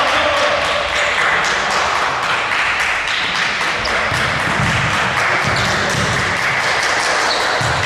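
Indoor basketball game: a steady wash of hall noise with many short taps and thuds from the ball bouncing and players' feet on the court.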